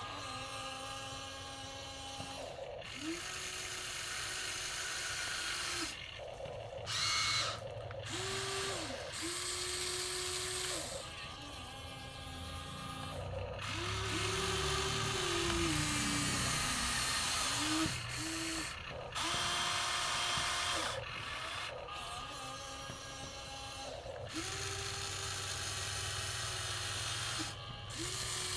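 Electric motors of a Huina radio-controlled excavator whining in short runs of one to three seconds, starting and stopping again and again as its functions are worked in turn. The pitch ramps up at each start and down at each stop, and one longer run near the middle sags and wavers in pitch as if under load.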